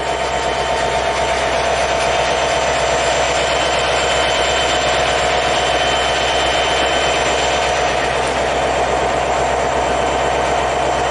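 Norfolk Southern diesel-electric freight locomotives running as they pass close by, followed by autorack freight cars rolling past on the rails. A steady whine sits over the engine noise throughout.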